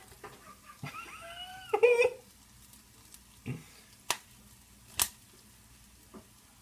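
Popcorn kernels popping in a covered pan: a few sharp single pops, a second or so apart, as popping tails off near the end of the batch. About a second in comes a short pitched vocal sound, falling in pitch, which is the loudest thing heard.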